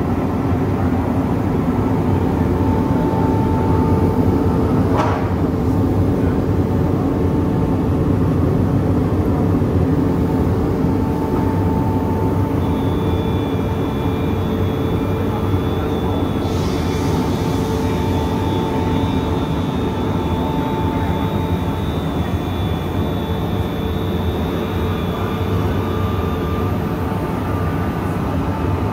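Electric motors of a Krüsi CM 40 log-home milling machine running steadily, giving a continuous hum with faint whining tones; a high whine comes in about twelve seconds in and fades out near the end. One sharp click about five seconds in.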